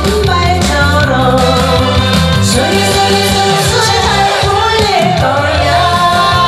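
Woman singing a Korean popular song live into a handheld microphone over an amplified backing track with a steady beat.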